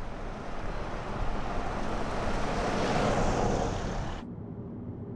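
Car driving past on a brick-paved road, its tyre and engine noise swelling as it approaches and peaking about three seconds in. About four seconds in the sound cuts to a low steady rumble, road noise heard from inside a moving car.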